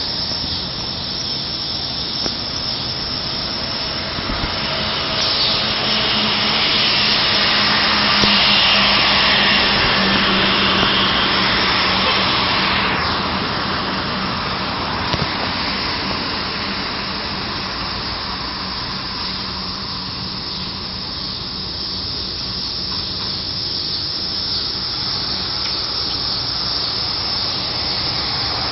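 Medical helicopter running on a rooftop helipad: a steady turbine and rotor hiss with a low hum. It grows louder for several seconds, then eases back, and a high whine slides down in pitch about halfway through.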